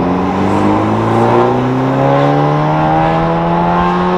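Turbocharged 1.5-litre four-cylinder of a 2017 Honda Civic Si, running with a catless downpipe and muffler delete, pulling hard under full throttle, heard from inside the cabin. Its note climbs steadily in pitch as the revs rise through the gear.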